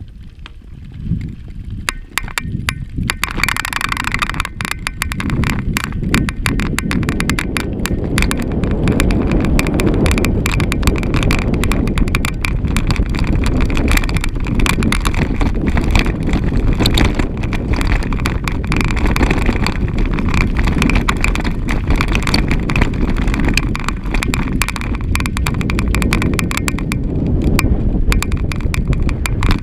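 Mountain bike ridden over a gravel trail: knobbly tyres crunching on loose stones and the bike rattling over the rough surface, with steady wind rumble on the microphone.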